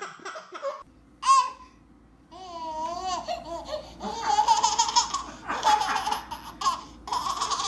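Baby laughing in several bursts, with a short pause early on and a long run of pulsing giggles in the second half.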